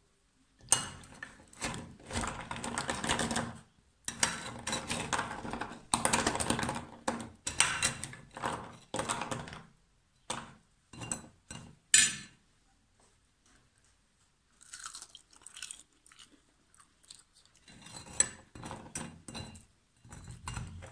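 Metal slotted skimmer stirring and lifting syrup-soaked tulumba pastries in a glass baking dish: crisp, sticky crunching in bursts, with a sharp tap about twelve seconds in.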